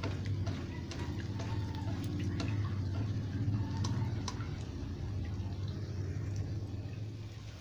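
Egg and bitter gourd frying in a wok: a soft sizzle with scattered small pops and crackles, over a steady low hum.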